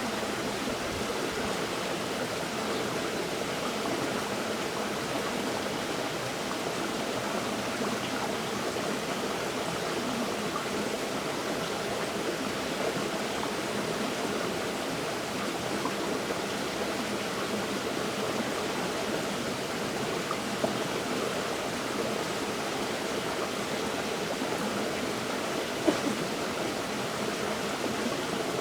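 River water flowing in a steady, even rush, with two brief sharp ticks about two-thirds of the way through and near the end.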